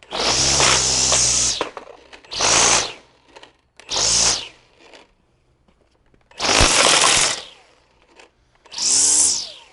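Milwaukee M18 Fuel cordless string trimmer's brushless motor spinning up in five short bursts as the trigger is pulled and released, the first burst the longest.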